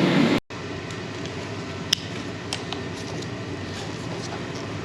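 Steady background hum with a few faint clicks and one sharp click about two seconds in, after the sound drops out abruptly near the start.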